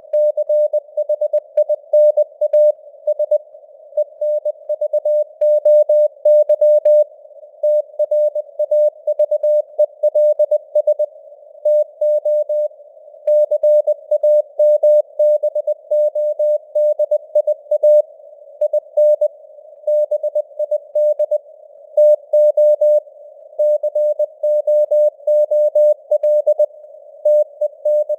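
Morse code (CW) sent at 20 words per minute: a single mid-pitched tone keyed rapidly on and off in dots and dashes, spelling out news headlines. It plays over simulated radio static, with the signal strength fading up and down (QSB).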